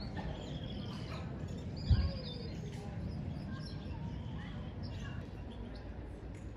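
Small birds chirping in short, scattered calls over a steady low rumble, with one brief low thump about two seconds in.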